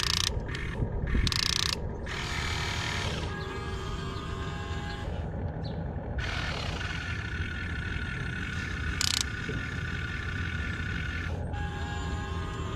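Electric gear motors of a Huina 1592 RC excavator whining and grinding as the cab swings and the arm moves. It starts with a few short, sharp bursts of motor noise, then goes into longer steady runs with short pauses between them.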